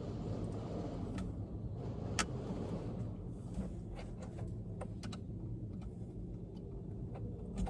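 Scattered light clicks and rattles of plastic wiring connectors and harness being handled and pushed aside behind a truck's dashboard, the sharpest about two seconds in, over a steady low hum.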